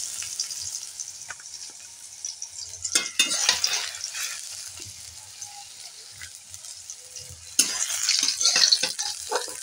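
Vegetable strips sizzling in hot oil in a metal kadai while a steel spatula stirs and scrapes them against the pan, with louder spells of sizzle and scraping about three seconds in and near the end.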